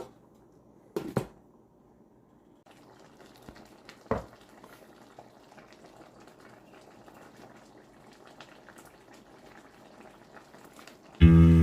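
A pot of chicken curry bubbling on the stove with a faint, fizzing simmer. There are two sharp knocks about a second in and another about four seconds in, and music starts just before the end.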